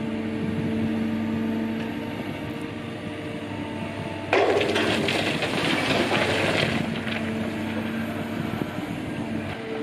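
Liebherr excavator running with a steady hum; about four seconds in, a sudden loud rush of dirt and stones pouring out of its tipped bucket lasts about two and a half seconds.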